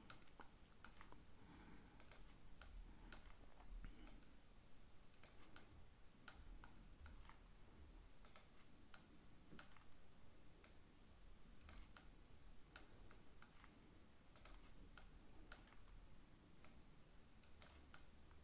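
Faint computer mouse clicking, irregular and often in quick pairs, over a low room hum.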